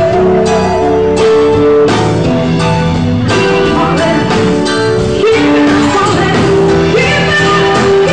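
Live band playing loudly, with a woman singing into a microphone over electric guitar and a drum kit keeping a steady beat.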